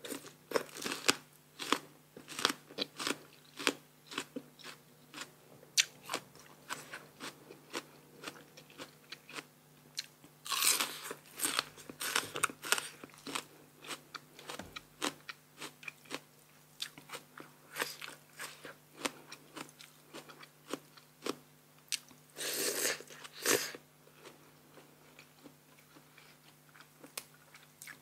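Close-miked eating sounds of a person biting and chewing blue crab papaya salad: many short, crisp crunches, with two longer, louder bursts, about a third of the way through and again near the end.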